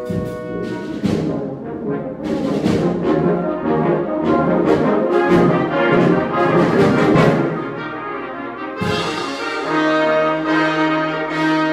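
Brass band of tubas, euphoniums, tenor horns and trombones playing a full chordal passage of busy moving notes. Just before 9 seconds in, the band makes a fresh, brighter entry and settles into held chords over a steady bass note.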